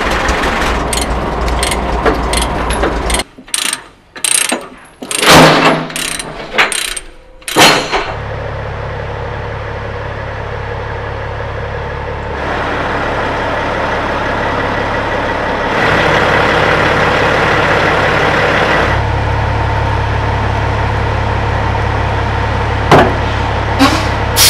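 Diesel truck engine idling with a steady low rumble, while load chains clank and a chain binder is worked, with a run of sharp clicks and metallic clanks about three to eight seconds in.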